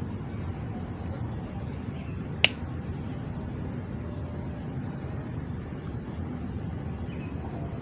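Steady low outdoor background rumble with a single sharp click about two and a half seconds in.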